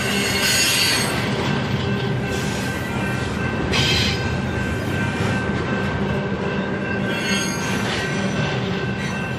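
Freight train cars rolling past, a steady rumble of wheels on rail with short high-pitched wheel squeals three times.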